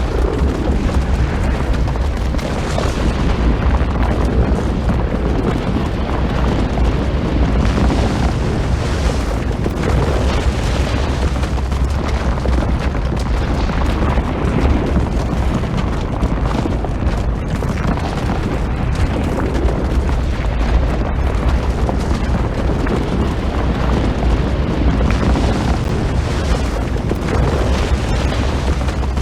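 Snow avalanche sound effect: a loud, deep, unbroken rumble of sliding snow with no let-up.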